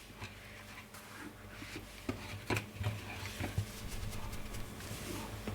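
Faint rubbing and a few light clicks from a Microfleur microwave flower press being handled and shaken to cool it down between microwave runs.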